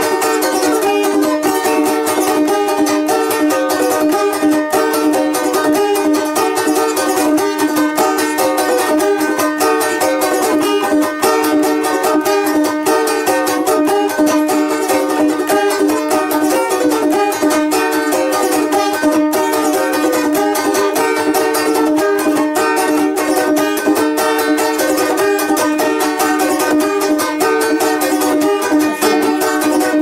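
Two balalaikas playing a traditional Russian folk tune together, with fast, continuous strumming. A steady low note rings under a moving melody.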